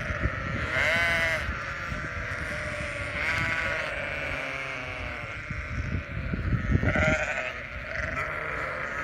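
Flock of sheep bleating: three loud calls, about one second in, midway and near the end, over a steady low rumble.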